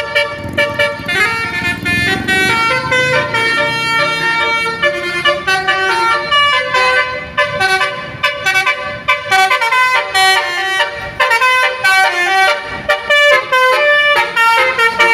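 Bus's multi-tone 'basuri' telolet horn playing a tune: a quick run of short, shifting horn notes, several pitches sounding at once.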